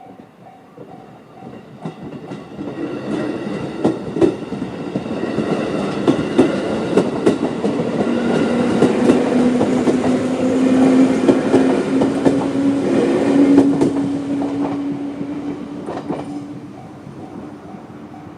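A JR 211 series electric train runs over a level crossing, wheels clacking over the rail joints, loudest through the middle and fading after about 15 s, with a steady low hum under it. The crossing's electronic alarm bell, JR's standard sound, is heard again near the end as the train noise dies away.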